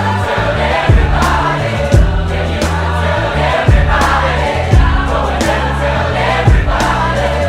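Background music: a pop song with a steady drum beat and choir-like singing.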